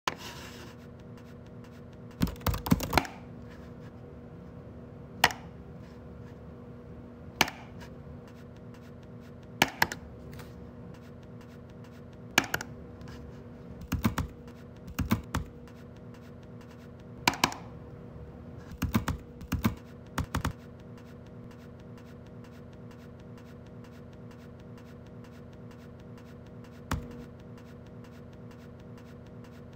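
Computer keyboard typing in short scattered runs of keystrokes and single clicks, a few seconds apart, over a steady low electrical hum.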